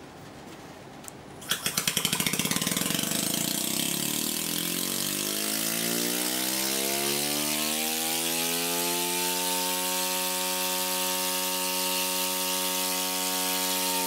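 An open scroll compressor with its top shell removed starts up: a fast clatter of clicks about a second and a half in, then a whine that rises steadily in pitch as the motor ramps up in speed on a variable-speed drive and levels off into a steady whine. A steady hiss runs underneath as air and oil mist blow out of the exposed scrolls.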